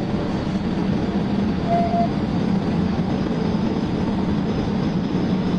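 Sportbike riding at a steady speed: an even, unbroken rush of engine and road noise with a low hum underneath.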